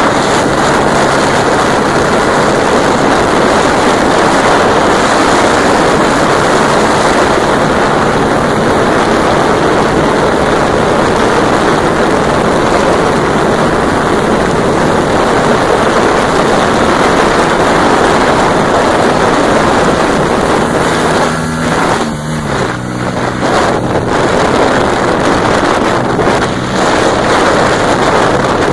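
Honda Dream C100 motorcycle at full throttle at top speed, its engine note through an aftermarket Roncar aluminium exhaust largely buried under heavy wind rush on the microphone. About three-quarters of the way through the loudness dips briefly and the engine's lower note comes through more plainly.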